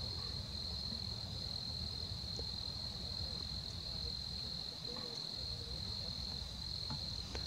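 Steady, unbroken high-pitched trill of a chorus of crickets, over a low rumble.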